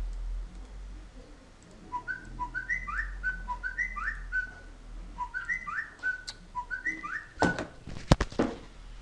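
A short whistled phrase of a few stepped rising notes, the last sliding down, repeated four times. It is followed near the end by a cluster of loud knocks.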